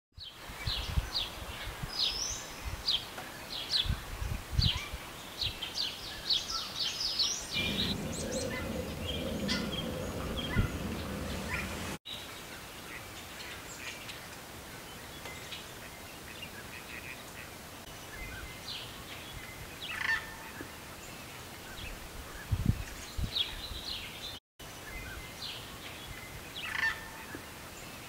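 Wetland birds calling: many short, high calls in quick succession over the first eight seconds, then more scattered, over a low rumble and a few low thumps.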